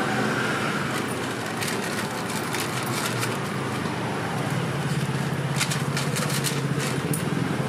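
Street background noise with traffic: a steady hum, a low engine-like drone building about halfway through, and scattered light clicks and scrapes.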